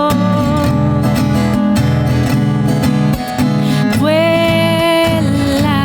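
Acoustic guitar strumming the accompaniment of a Chilean tonada between sung lines, with a held melody note about four seconds in.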